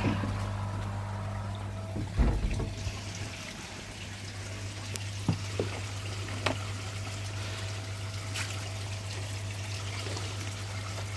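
Water trickling and splashing into a koi pond, with a steady low hum underneath. There is a louder thump about two seconds in and a few faint clicks later.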